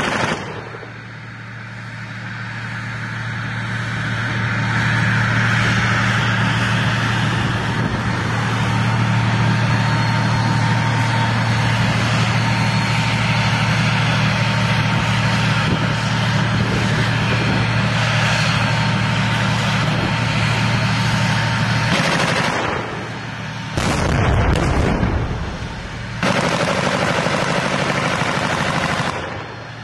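Tank engine running steadily, with its track and running-gear noise. Late on the engine sound breaks and a deep boom comes, then the engine is heard again.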